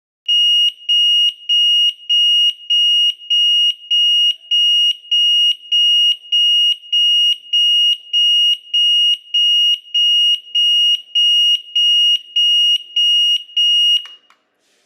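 SFL-301 cigarette-smoke detector's 85 dB alarm sounding: a loud, high-pitched beep repeating a little under twice a second. It cuts off about fourteen seconds in with a short click.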